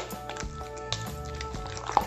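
Background music with held notes, and a few light clicks from a spoon mixing the cake filling in a bowl.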